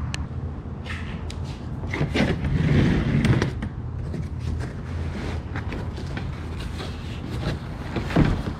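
A large cardboard box being handled and opened on a table: cardboard scraping and rustling, with a number of short knocks as the box is shifted and its top lifted.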